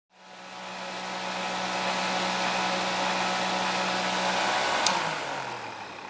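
Small electric desk fan running steadily, blowing air through an aluminium transmission-cooler's fins, with a low motor hum under the rush of air. A sharp click about five seconds in, after which the hum falls in pitch and the sound fades as the fan spins down.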